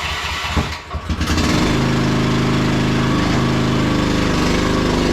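Small gasoline engine of a mini skid steer running just after being started, idling unevenly at first, then throttled up to a steady, higher-speed run about a second and a half in.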